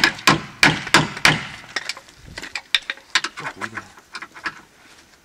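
Hammer blows on a steel drift rod, driving a bolt out of a rally car's front lower suspension arm. Sharp metallic strikes come about three a second for the first second and a half, then lighter, irregular taps and knocks that die away.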